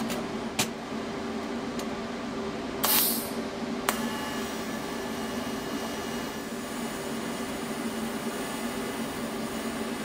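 TIG welding arc running steadily on steel plate during a fusion pass without filler rod, a steady hiss over the hum of the welding machine. A brief hiss about three seconds in and a sharp click about four seconds in come as the arc gets going.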